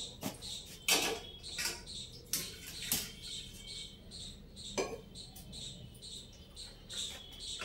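Steel pots, a steel jug and utensils being handled and set down on the counter and stove, giving a few sharp clinks and knocks, the loudest about a second in, near three seconds and near five seconds. A small high chirp repeats a few times a second behind it.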